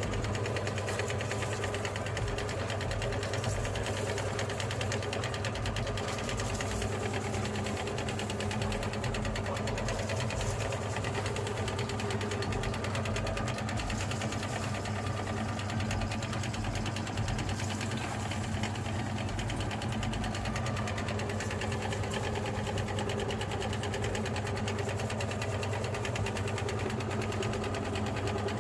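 Electric meat grinder running steadily: a constant low motor hum with a fast, even mechanical rattle over it.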